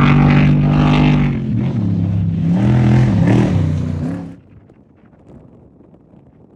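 Off-road race vehicle's engine running hard, its pitch dipping and rising as the throttle comes on and off, then stopping abruptly about four seconds in.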